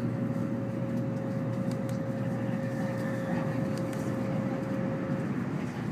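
Cabin running noise of an N700 series Shinkansen Green car in motion: a steady low rumble, with a faint steady tone that stops near the end.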